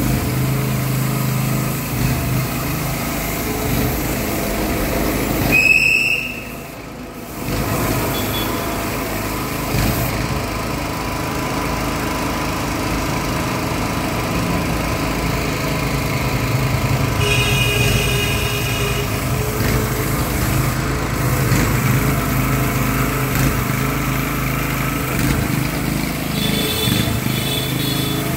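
Small portable petrol generator running steadily under load, powering an airless paint sprayer, with the hiss of paint being sprayed over it. The sound drops briefly about six seconds in.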